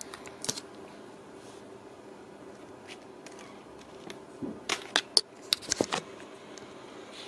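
Ragdoll kittens scrambling in a soft-sided fabric carrier: scratchy rustles of claws on fabric, a couple just after the start and a burst of sharper ones in the second half.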